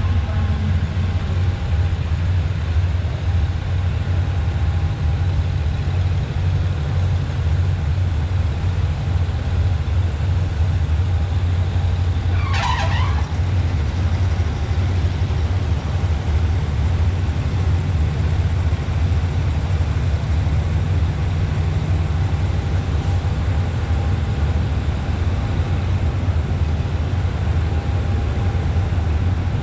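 Steady low rumble of an idling engine, even in level throughout, with one short hiss about twelve seconds in.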